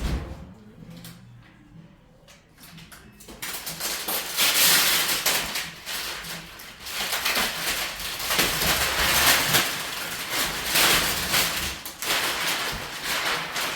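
A knock, then about three seconds in a long stretch of rustling and clattering with many small knocks, as of things being handled.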